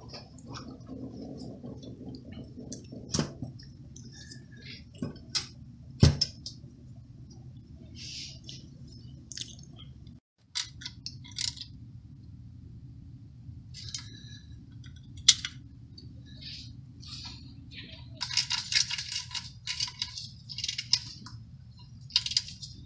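Light metallic clinks, taps and knocks as engine parts and fasteners are handled while the Ferrari 360's intake plenum is refitted, with a quick run of small clinks near the end. A steady low hum lies underneath.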